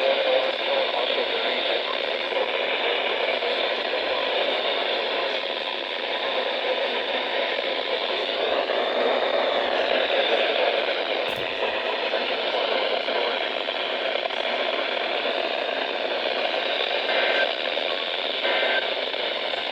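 Radio receiver static: a steady hiss with faint wavering tones drifting up and down under it, and a single click about eleven seconds in.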